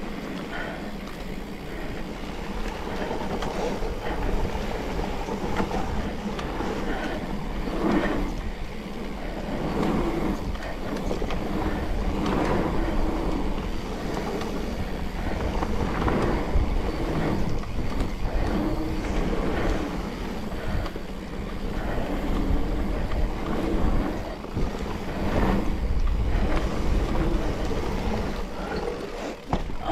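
Mountain bike ridden along a dirt trail: tyres rumbling over the ground, with scattered knocks and rattles from the bike.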